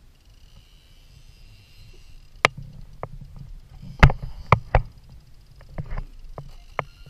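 Sharp knocks and clacks of fishing gear against a plastic kayak hull, about eight in all, the loudest three in quick succession around the middle, over a low rumble of water against the hull.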